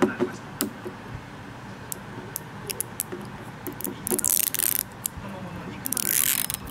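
Fingers picking at and peeling the plastic film seal off the cap of a glass coffee-milk bottle: scattered small clicks and crinkles, with two longer crinkling tears about four and six seconds in.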